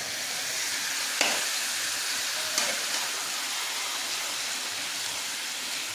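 Raw chicken pieces sizzling in hot oil and browned onions in a steel kadhai as they are tipped in and stirred with a ladle. Two sharp clinks of the steel ladle, about a second in and again a second and a half later.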